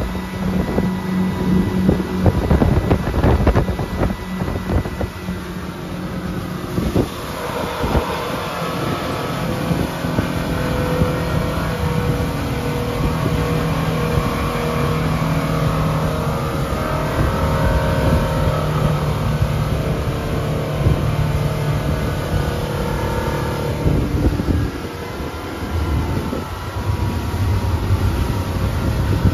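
Motorboat engine running under way, with wind and water noise. The engine note shifts about seven seconds in and again near the end.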